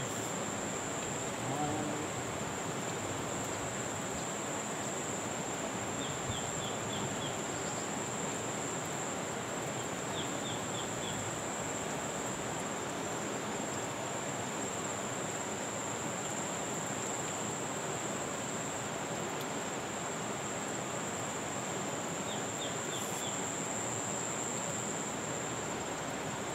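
Steady rush of a muddy river running high after a flash flood, under a continuous high, thin insect drone. A few short runs of about four quick chirps come three times.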